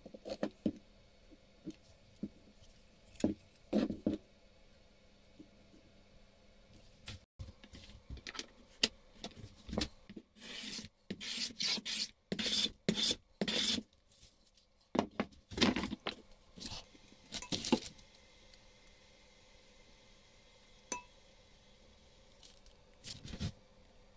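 Metal bench plane taking about a dozen short, quick shaving strokes along a narrow beech strip, starting about ten seconds in and lasting some eight seconds. Before it come scattered light knocks of wood being handled.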